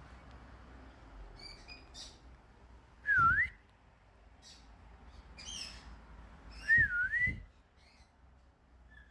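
Two loud swooping whistles, each dipping in pitch and rising again, about three and seven seconds in, with soft, short high bird chirps around them.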